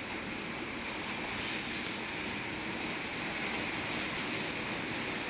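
Hand sanding of a steel rim: a steady rasping with a regular back-and-forth stroke rhythm, a few strokes a second.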